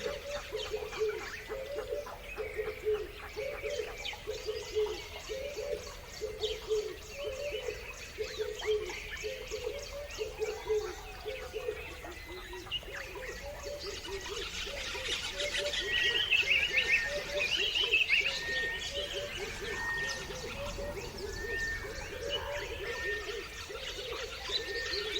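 Several birds chirping and calling together. A low call repeats about one and a half times a second throughout. The higher chirping grows busiest and loudest about midway, and in the second half a short high note repeats about once a second.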